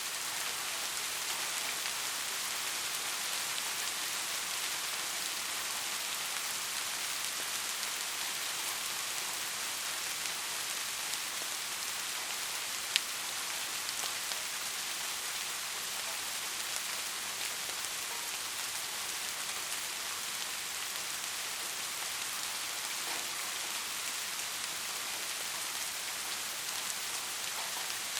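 Steady rain falling, an even hiss with one sharp tick about halfway through.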